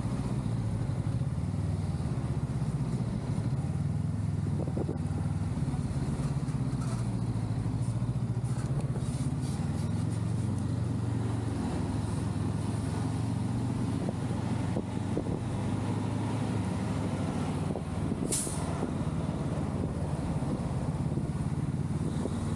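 Honda Rebel 500's parallel-twin engine running steadily as the bike rides in close traffic, a continuous low drone that rises and falls a little in pitch. A short sharp hiss about eighteen seconds in.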